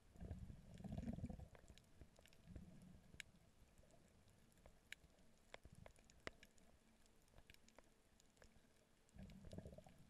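Near silence from an underwater camera: faint low rumbles about a second in and again near the end, with a few scattered faint clicks.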